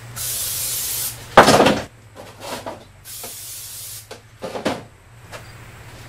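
Aerosol can of cooking spray hissing in two bursts of about a second each as it coats plastic paver molds. Between them comes a loud knock of a plastic mold being handled on the wooden table, with a few lighter knocks later.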